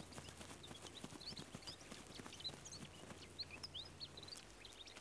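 Faint highland ambience: small birds chirping in many quick, short, high notes, with scattered light ticks.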